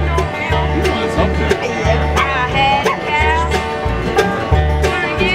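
Acoustic guitar and mandolin playing a bluegrass tune: the guitar picks alternating bass notes with strummed chords while the mandolin picks the melody.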